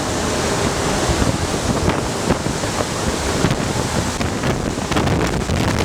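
Strong, steady rush of air driven by a VOD-40 megawatt mine ventilation fan, buffeting the microphone.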